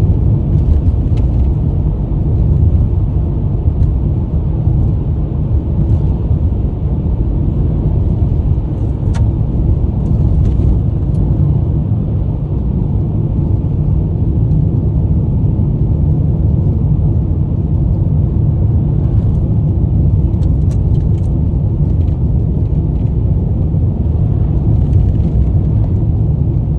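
Steady low rumble of a car travelling at road speed, heard from inside the cabin.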